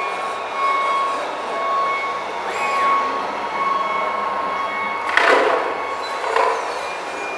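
Model wheel loader's hydraulic pump whining steadily as it works its bucket. About five seconds in comes a short rush of dirt as the bucket tips its load into the model dump trailer, with a smaller spill about a second later.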